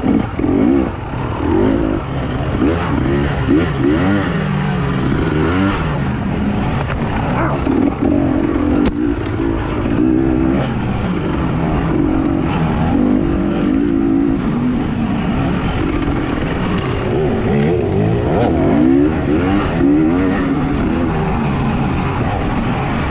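Dirt bike engine revving up and down over and over, its pitch rising and falling every second or two, under a constant rushing noise.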